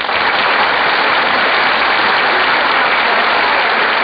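Studio audience applauding steadily, heard through a dull-sounding 1940s radio broadcast recording.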